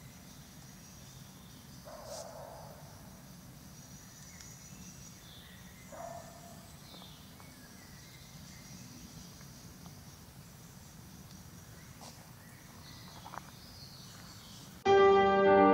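Quiet woodland ambience: faint, high bird calls now and then over a low steady hiss, with a few short, lower calls about two and six seconds in. Music cuts in suddenly near the end.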